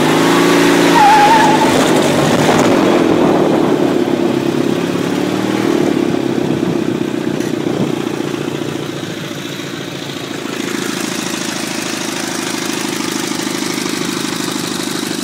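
18 hp Briggs & Stratton go-kart engine running under throttle, its pitch rising and wavering at first. About ten seconds in it eases off and runs on steadily, more quietly.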